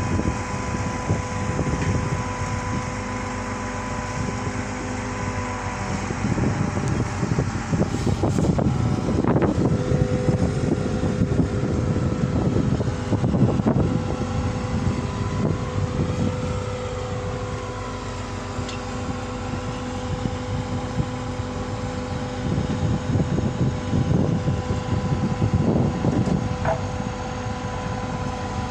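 Heavy construction machinery running steadily, a diesel engine with a constant hum, under gusts of low rumbling noise that come and go.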